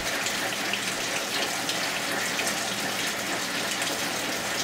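Flood coolant pouring steadily from a fine nylon mesh strainer bag tied over a CNC mill's coolant nozzle and splashing down into the machine, a continuous even rush with a low steady hum beneath it.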